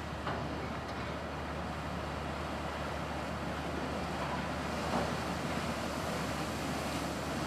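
Paddle steamer's paddle wheels churning the water in a steady rush as the boat comes in alongside, with wind on the microphone.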